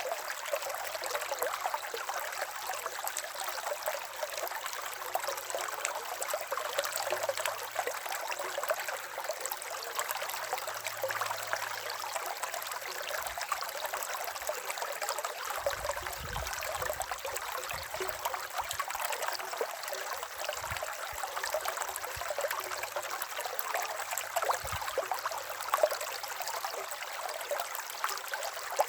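River water flowing steadily over rocks: a continuous rushing and trickling with fine splashes, and a few brief low thumps in the second half.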